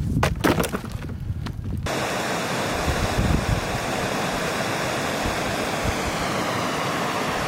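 A few sharp knocks, then, from about two seconds in, the steady rush of fast-flowing creek water.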